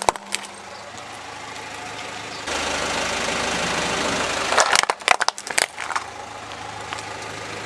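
A car engine idles steadily while a car tyre rolls onto a plastic toy police car on gravel. About five seconds in, the toy cracks and breaks under the tyre in a quick cluster of sharp snaps. A few cracks also sound right at the start.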